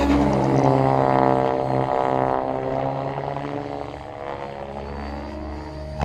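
Thunder Tiger Raptor E700 electric RC helicopter in flight, its main and tail rotors giving a steady buzzing drone that slowly fades as it climbs away.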